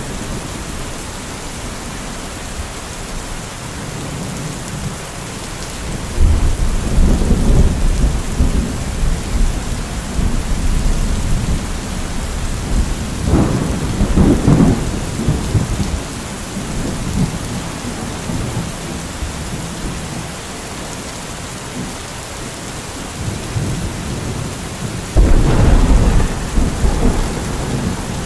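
Steady rain during a thunderstorm, with rolling thunder: one rumble about six seconds in, another around the middle, and a third that breaks suddenly near the end.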